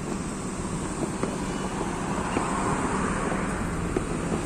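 Road traffic noise from cars on the road: a steady rush of engines and tyres that swells for a second or so past the middle as a vehicle passes close.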